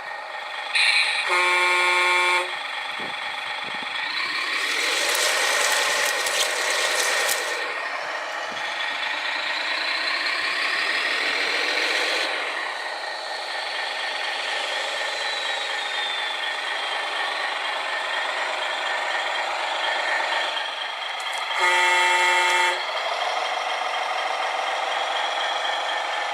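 An RC truck's horn sounds twice, each blast about a second long, once near the start and again near the end. Between the blasts, the electric motors and gears of the RC machines whine and rise and fall in pitch as they work.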